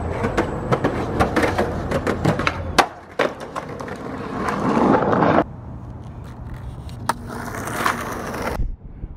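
Skateboard rolling on rough pavement, the wheels clicking over cracks, with a sharp board clack about three seconds in. After an abrupt change, a skateboard rolls more quietly on smooth concrete with one more knock.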